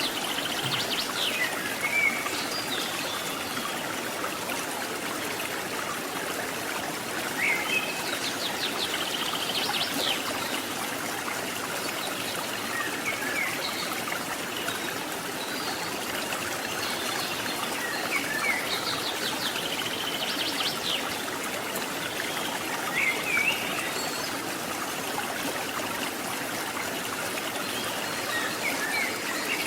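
River water flowing steadily over rocks, with birds chirping over it in short calls every few seconds.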